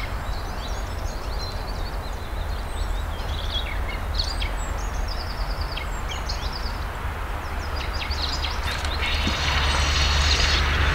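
Small birds chirping over a steady low rumble; about nine seconds in, a spinning reel starts to be cranked, a steady whirring, as a hooked fish is reeled in.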